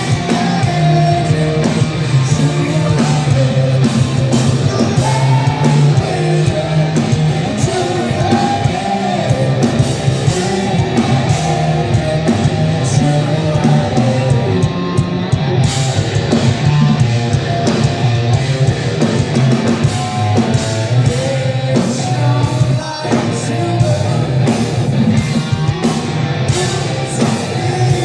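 Hard rock band playing live: distorted electric guitars, bass and drums with a male lead vocal, recorded loud from the crowd.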